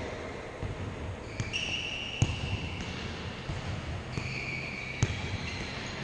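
Futsal ball kicked on an indoor court, with sharp echoing kicks about two seconds in (the loudest) and about five seconds in, and a few lighter touches. Between them come high, drawn-out squeaks over the steady din of the hall.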